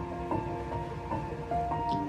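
Instrumental music with long held notes.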